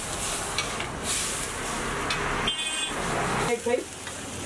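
Sauce and vegetables sizzling in a wok over a strong gas burner, with a metal spatula stirring and scraping the pan.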